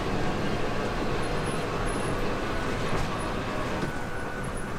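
Amusement-park ride train running slowly past the station platform: a steady, even mechanical running noise from the train.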